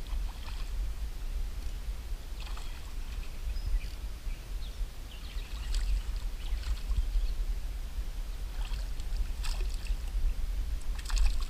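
Hooked smallmouth bass splashing at the river surface several times as it is reeled in, over a steady low rumble.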